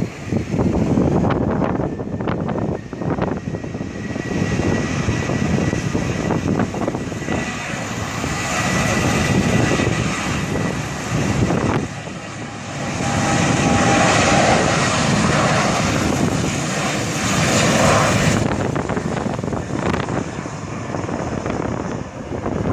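Boeing 737-800 jet engines running loudly as the airliner rolls along the runway: a dense roar with a thin steady whine above it, swelling loudest past the middle.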